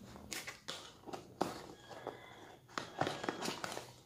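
Cardboard perfume box being opened by hand: quiet, irregular knocks, taps and rustles of the box and its inner packaging being handled.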